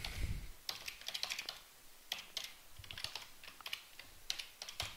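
Computer keyboard typing: a run of faint, unevenly spaced keystrokes.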